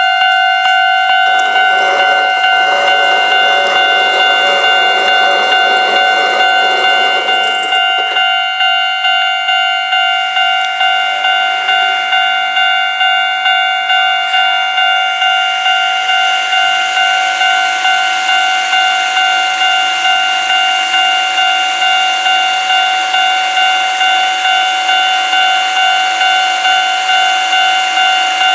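Japanese level crossing warning bell ringing: a steady electronic tone beating in an even repeating rhythm. A passing rumble lies under it for the first several seconds, and a rising hiss of train noise builds through the second half.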